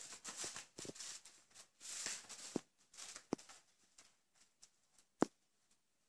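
A kitten scratching and pawing at a disposable absorbent pad on a tile floor, scratching as if to cover urine: bursts of crinkling, rustling pad with a few sharp taps. The rustling thins out after about three seconds, and the sharpest tap comes about five seconds in.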